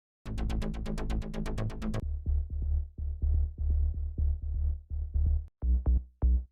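Melodic techno sample-pack demo played on a drum machine and synthesizer. It opens with a fast roll of repeated hits, about nine a second, over a bass note for about two seconds. Pulsing bass notes follow, then from about five and a half seconds in, short, separate bass stabs.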